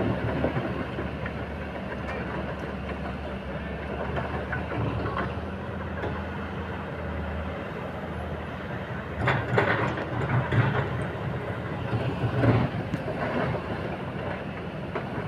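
Kobelco SK210 excavator's diesel engine running steadily, with louder clattering and knocks from about nine to thirteen seconds in as the bucket works the pile of stones.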